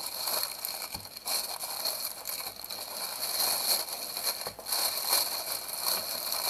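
Plastic mailer bag and cellophane-wrapped diamond painting kits crinkling and rustling as the kits are pulled out, with the kits' loose drills rattling.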